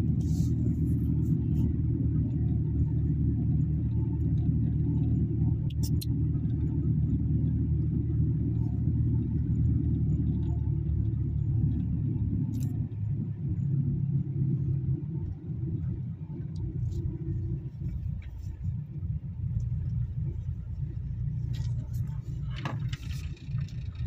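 Vehicle engine droning steadily from inside the cab while driving, then easing and getting quieter about two-thirds of the way through.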